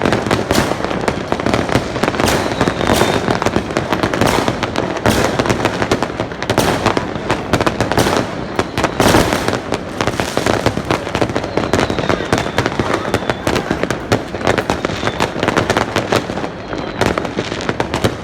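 Fireworks going off thick and fast: a dense, continuous run of bangs and crackles with no pause, and a faint whistle heard a few times.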